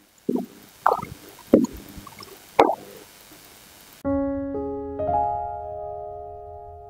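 Piano outro music begins about four seconds in: held chords that change about a second later and slowly fade. Before it come a few short, separate sounds in the room.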